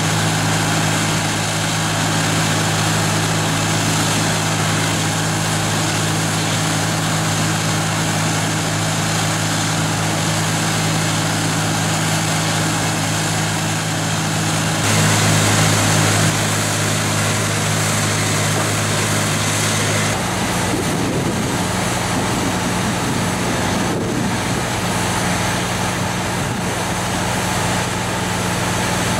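Heavy diesel engine of mining machinery running at a steady speed. It gets briefly louder about 15 seconds in, and its note changes about 20 seconds in.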